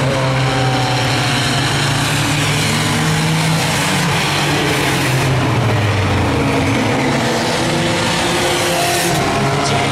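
Several claimer-class stock cars' engines running hard at racing speed on an oval. The engine note dips about five seconds in, then climbs again as the cars accelerate.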